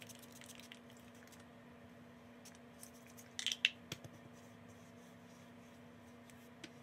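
Hands fiddling with a small object: faint scattered clicks and a short burst of clicking and rustling about three and a half seconds in, over a steady low hum.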